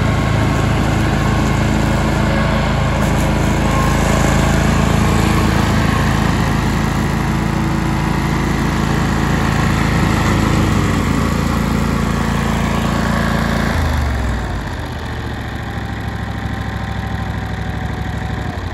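Ferris front-mount mower's 16 hp V-twin engine running steadily while the mower is driven, then dropping to a lower, quieter speed about fourteen seconds in.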